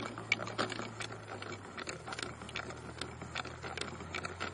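Homemade butter churn being worked by hand to churn cream into butter: a quick, uneven run of mechanical clicks and knocks, about three or four a second.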